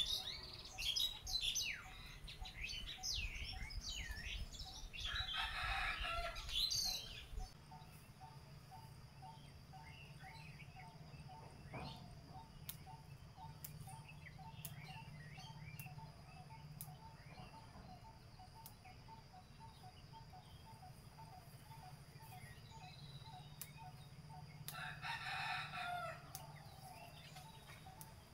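A rooster crowing twice, about five seconds in and again near the end, each crow ending in a falling note. Small birds chirp in the first few seconds, and a faint call repeats about twice a second throughout.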